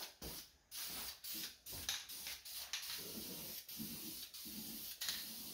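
Aerosol spray can of engine enamel primer hissing in several long passes with short breaks between, as the final strokes of a primer coat go on.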